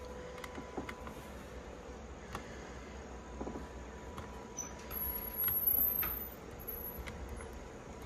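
Faint fingertip taps on the buttons of a Honeywell touchscreen thermostat over a steady low hum, with a high, thin chirping tone lasting about a second just past the middle.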